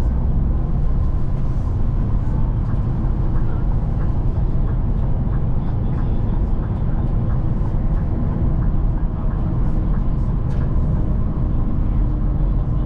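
Steady engine and tyre noise inside a moving shuttle bus at motorway speed, with a few faint clicks.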